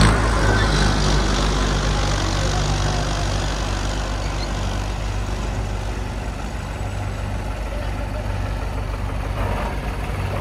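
Tractor diesel engine running steadily under load, a deep, even drone.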